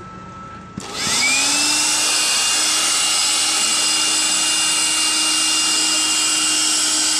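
Handheld electric air blower switching on about a second in, spinning up with a quick rising whine, then running steadily with a strong rush of air as it pumps air through a valve into an orange inflatable rescue boat.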